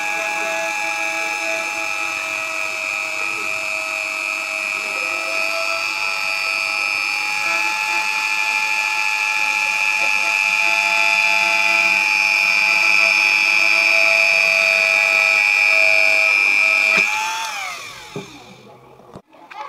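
Small handheld electric rotary tool (mini drill) running at speed with a steady high whine, its bit cutting a circle out of a flattened PVC pipe sheet. Near the end it is switched off and winds down, its pitch falling away.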